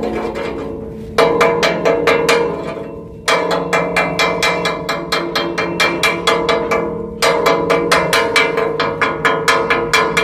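Chipping hammer rapping on a ship's steel bulkhead to knock off rust, about five sharp metallic strikes a second. The strikes come in runs broken by brief pauses.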